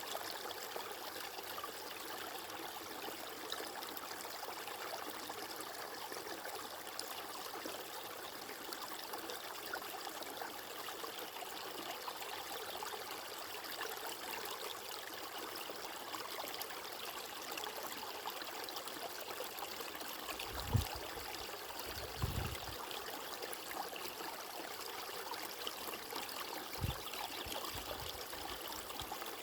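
Flowing water rushing steadily, like a stream, with a few short low thumps in the last third.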